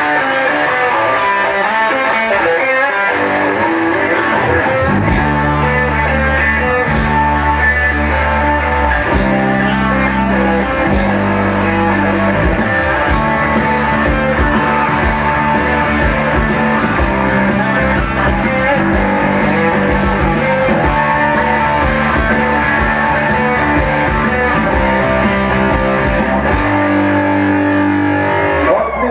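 Live rock band playing an instrumental passage without vocals: electric guitar over bass guitar, keyboard and drums. Heavy bass notes come in about five seconds in.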